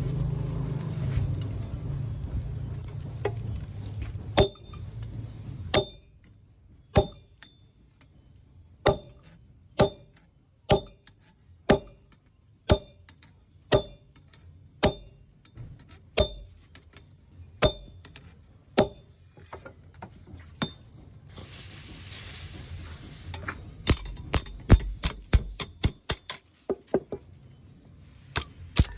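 A blacksmith's hammer striking steel on an anvil at about one blow a second, each blow ringing high and metallic. Near the end comes a rapid flurry of lighter strikes, after a steady low noise at the start.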